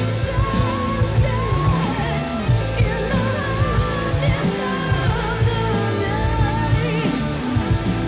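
1980s melodic rock (AOR) demo recording playing: a female lead voice singing over electric guitar, bass and drums with steady beat.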